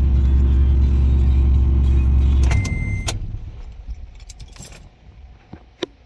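Toyota FJ Cruiser's 4.0-litre V6 idling steadily, then switched off about two and a half seconds in. A short, steady high beep sounds as it stops, followed by a few light clicks.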